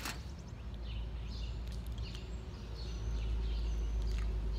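Outdoor street ambience: scattered faint bird chirps over a steady low rumble, which grows a little past the middle.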